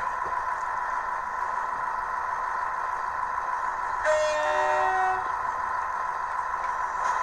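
Model train's horn sound, a short blast of about a second made of several held tones, about four seconds in, from a sound-fitted OO gauge model, over a steady electrical hum.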